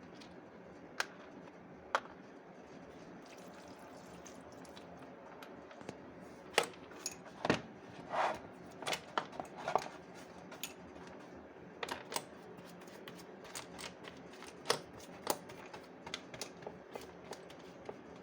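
Irregular light clicks and clinks of small carburetor parts and hand tools being handled, a few isolated clicks at first, then a busier run of knocks and clicks from about a third of the way in.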